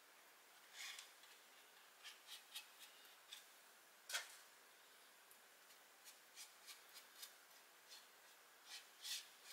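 Quiet, scattered clicks and light rubbing of wooden parts being handled and fitted together during a glue-up. The sharpest click comes about four seconds in, with a short cluster of rustles near the end.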